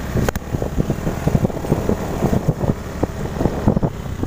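Small motor scooter ridden over a bumpy dirt track: the engine running under uneven rattles and knocks from the rough ground, with a sharp click near the start and wind on the microphone.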